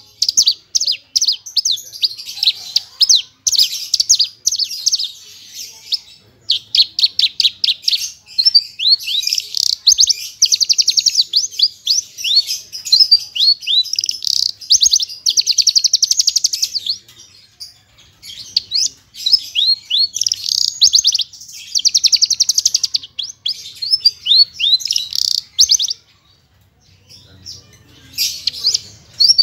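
Javan bush lark (branjangan, parva race) singing a long, fast, loud song of rapid chirps, trills and quick downward-sweeping notes, packed with imitated phrases of other birds. The song breaks off briefly about six seconds in, again around seventeen seconds, and for a couple of seconds near the end.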